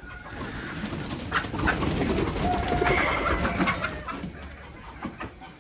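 Desi chickens calling in a dirt yard, with a flurry of scuffling and wing flapping, loudest in the middle.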